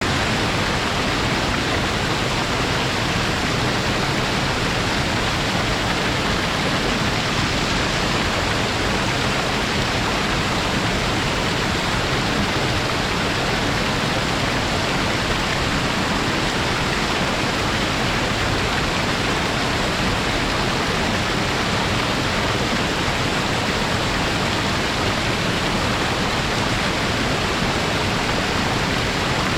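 Waterfall rushing: a loud, steady, even roar of falling and splashing water that doesn't change.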